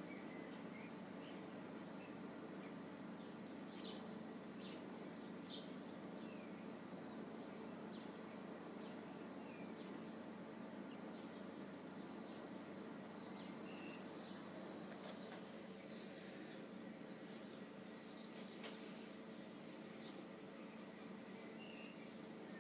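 Faint high chirps, some single and some in quick runs of short downward sweeps, over a steady low hum. The chirps come more often in the second half.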